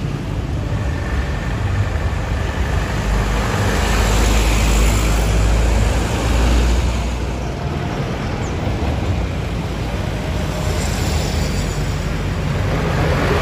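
Loaded sugarcane trucks driving past one after another, their diesel engines rumbling loudest about four to seven seconds in as the first truck goes by, with another coming up near the end, amid motorcycle and road traffic.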